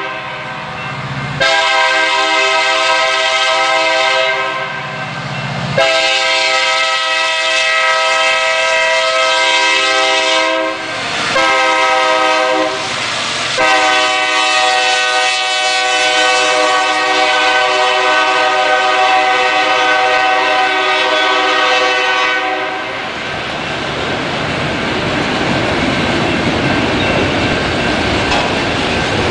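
Union Pacific SD70M diesel locomotive's air horn sounding in a series of blasts, two long, one short, then one held for about nine seconds, the grade-crossing signal as it passes. After that comes the steady rumble and clatter of autorack freight cars rolling by.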